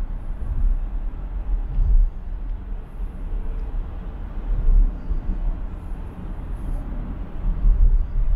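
Car travelling at highway speed: a low, uneven rumble of road and wind noise that swells and fades.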